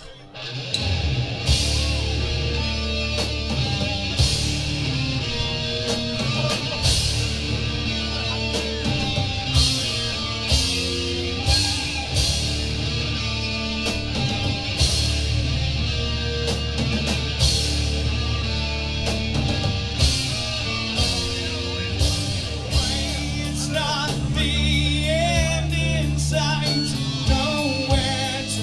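Live rock band starting the opening of a song without lyrics: drums with regular cymbal hits, bass and guitars, kicking in about half a second in. A wavering melodic line, like a lead guitar, comes in near the end.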